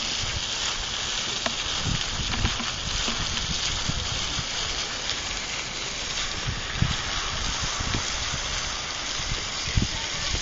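Strong wind buffeting the microphone, with uneven low gusts over a steady hiss.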